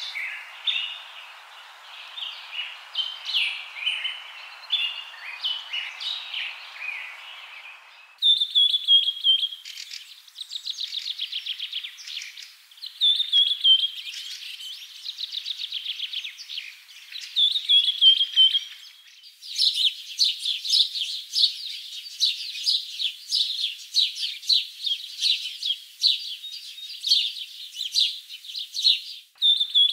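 Birds chirping and singing: quick high chirps, short falling whistles every few seconds, and a long run of fast trills in the second half.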